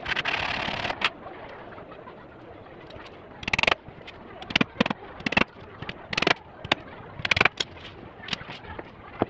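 Sharp knocks of a hammer on a wooden frame: about a dozen irregular strikes, some in quick pairs, after a brief scraping rustle at the start.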